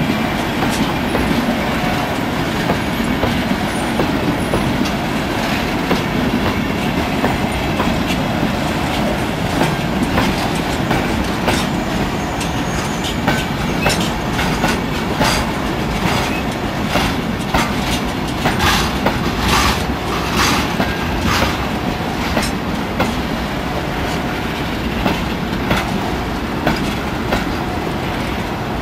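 Freight train tank cars rolling past close by: a steady rumble of steel wheels on rail with repeated clacking over the rail joints, the clacks coming thickest in the middle.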